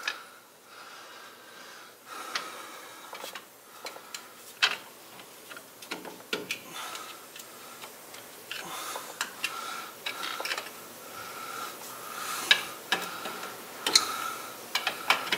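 Metal pry tool clicking and scraping against the old pinion seal and the differential housing of a Jeep Wrangler JKU's rear axle as the seal's edges are crumpled in to work it out. The clicks come irregularly, a few of them sharper near the end.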